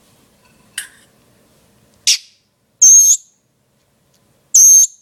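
Baby bird calling: four sharp, high-pitched calls, the last two longer and loudest.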